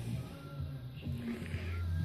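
Background music with held low bass notes.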